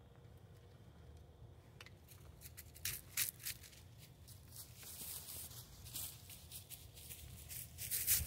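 Faint light clicks and rustling as an arrow is handled at a wooden longbow. The rustling grows denser and scratchier in the second half, like movement through dry leaf litter.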